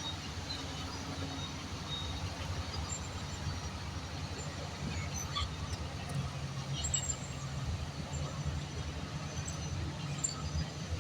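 Diesel engine of heavy earthmoving equipment running steadily with a low drone, with scattered faint high squeaks.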